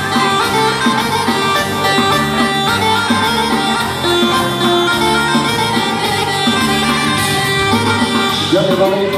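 Loud dance music: sustained melody notes over a moving bass line.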